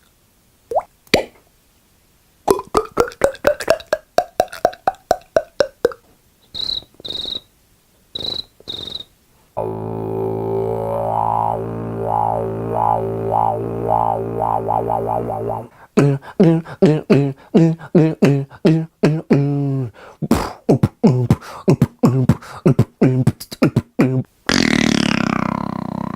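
A string of separate short cartoon-style sound effects, one after another. Near the start come a few short rising bloops. Next is a fast run of pulses that rises and falls in pitch, then four short high beeps. After that a low droning buzz with a quickening wobble, more rapid bouncing pulses, and finally a swirling, whooshing sound.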